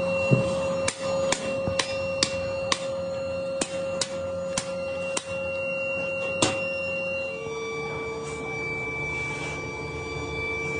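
A run of about ten sharp taps, roughly half a second apart, over steady held tones. The taps stop after about six and a half seconds, and the tones step down in pitch a little later.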